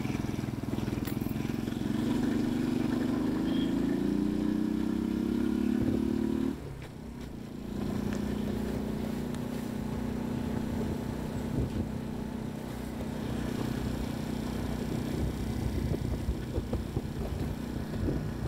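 Ray 50 Turbo motorbike's small 50 cc engine under way. Its pitch climbs steadily as it accelerates, falls away abruptly about six and a half seconds in, then picks up again and runs steady at an even pitch.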